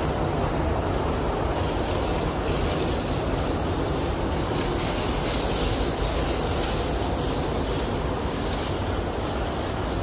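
Steady mechanical drone of air-conditioning and ventilation units, an even rumble that holds level throughout.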